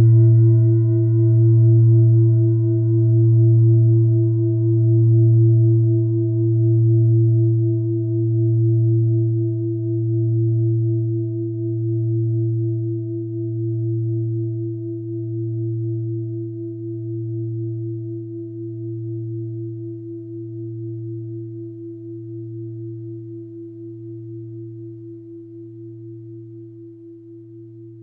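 A deep bell-like metal tone, struck once, rings on and fades slowly. It has a slow wobble in loudness about every second and a half.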